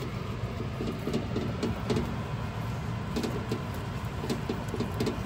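Kitchen shears snipping open the skins of baked potatoes: a scattering of short clicks and snips over a steady low hum.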